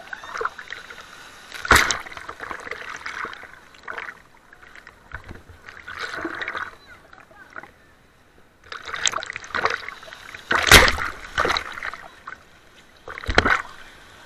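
Sea waves breaking and splashing, with people's voices mixed in and a few sharp thumps, the loudest about eleven seconds in.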